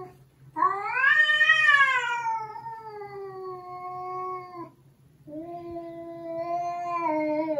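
Domestic cat yowling in two long, drawn-out calls, the first rising and then sliding slowly down, the second held fairly level. It is a defensive caterwaul during a tense first meeting with another cat.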